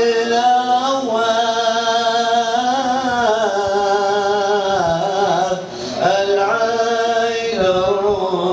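A man singing an Arabic devotional qasida (inshad) in long, drawn-out melismatic notes that waver and slide between pitches. There is a short breath break about five and a half seconds in.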